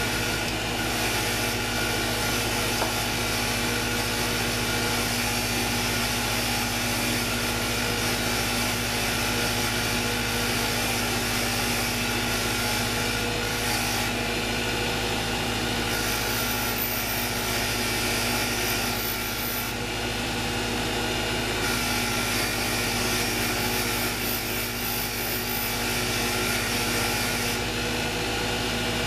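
Electric power tool running steadily while it scrubs a two-stroke weed eater piston clean, with a continuous scraping, grinding noise over the motor's hum that shifts several times as the piston is pressed on and moved about.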